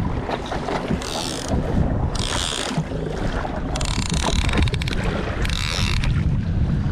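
Wind buffeting the microphone aboard a small fishing boat at sea, a steady low rumble. Short hissing swishes come in on top of it roughly every second and a half.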